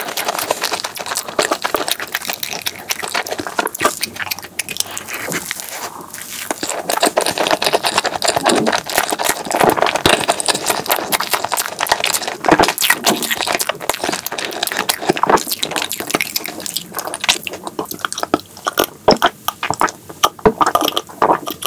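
Close-miked wet chewing and lip smacking of a mouthful of chocolate crepe cake with cream, a dense run of small sticky clicks. Near the end, sparser separate clicks as the milk is drunk.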